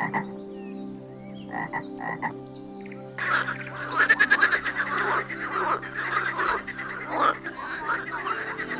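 Frogs croaking: a few short, separate croaks, then from about three seconds in a dense chorus of many frogs calling over one another.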